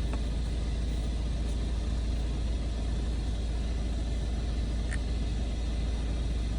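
2015 Audi TTS's 2.0-litre turbocharged four-cylinder idling steadily, a low rumble, with a faint click about five seconds in.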